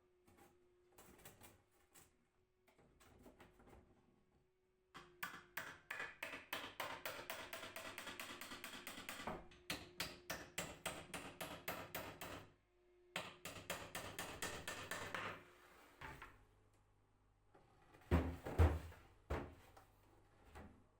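Rapid, evenly repeated hand strokes on wood, several a second, for about ten seconds, then a few louder wooden knocks near the end.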